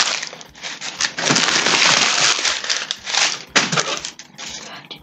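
Crinkly packing material being handled and crumpled by hand: an uneven crackling rustle, loudest from about one to three and a half seconds in, dying down near the end.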